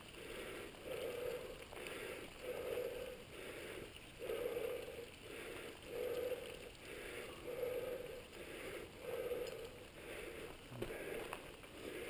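Mountain bike rolling along a dirt singletrack, with a rhythmic pulsing noise about every one and a half seconds and a single short knock near the end.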